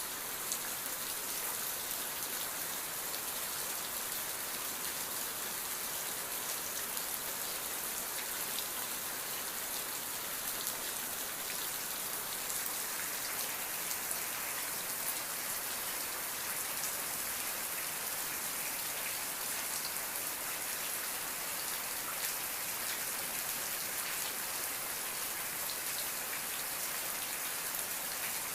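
Steady rain falling and pattering on a surface, an even hiss dotted with small drop ticks.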